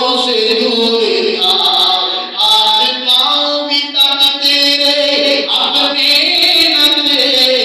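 A man's voice chanting in a sung, melodic style into a microphone, with held notes that bend up and down.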